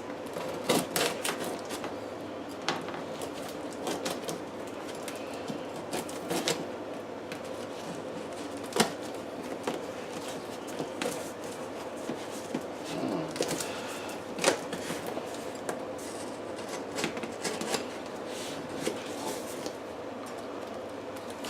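Heavily taped cardboard box being cut and worked open at the top: irregular scraping, rustling and sharp clicks, with two louder snaps about 9 and 14 seconds in.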